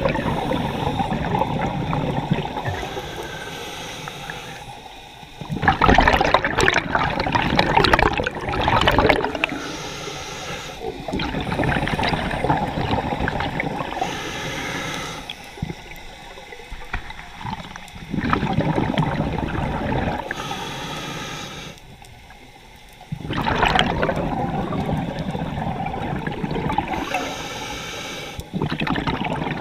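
Scuba diver's regulator breathing, heard through the camera's underwater housing: a hissing inhale, then a rushing burst of exhaled bubbles, repeating every few seconds.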